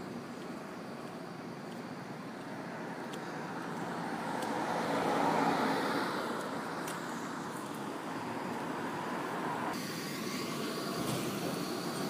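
A road vehicle passing by: its noise swells to a peak about five seconds in and fades again over steady traffic noise. About ten seconds in, the background changes abruptly, as where one recording is cut to another.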